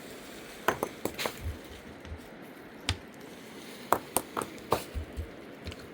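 A string of about ten irregular sharp knocks and clicks, some in quick clusters about a second in and again around four seconds in.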